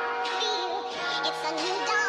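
Electronic background music: a wavering lead melody over held chords.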